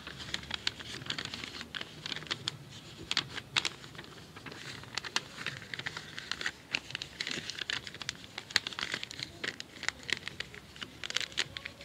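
A sheet of paper being folded and creased by hand into a small packet: irregular crinkling and crackling with quick sharp creasing clicks.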